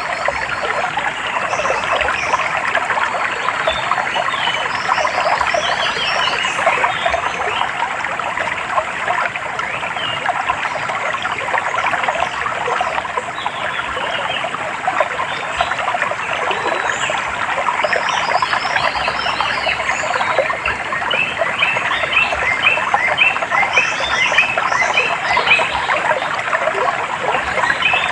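Water trickling steadily under a dense chorus of small chirping calls, which grow thicker and more regular near the end.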